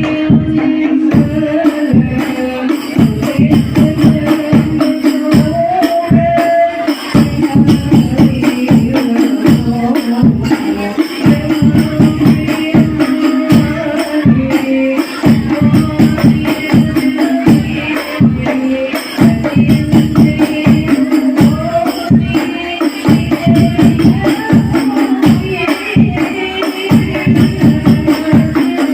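Hadroh ensemble playing: rebana frame drums beating a steady, fast rhythm, with a sung melody over them, amplified through a sound system during a sound check.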